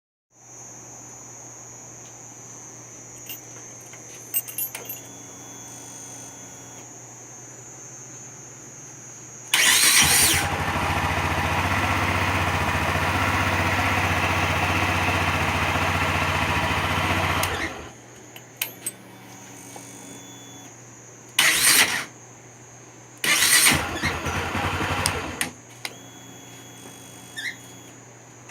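Honda CB Twister motorcycle being started with the electric starter. A faint steady hum comes first, then one long loud stretch of cranking with a harsh hiss and squeal, then two shorter presses. The owner finds this start-up noise very strange and does not know its cause.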